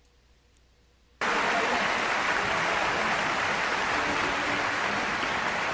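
Audience applause from a recording played back through an embedded YouTube video. It starts suddenly about a second in after near silence, runs steady, and cuts off abruptly at the end.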